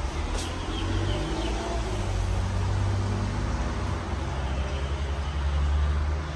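Casablanca Panama ceiling fan running steadily: a low rumble with faint humming tones above it.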